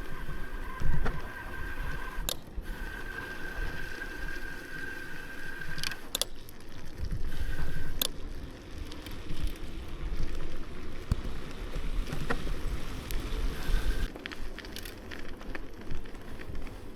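Bicycle ridden over snowy, slushy streets: crackling tyre noise and low wind rumble on the bike-mounted camera's microphone. A steady high squeal runs for the first few seconds and comes back briefly later, with a few sharp clicks.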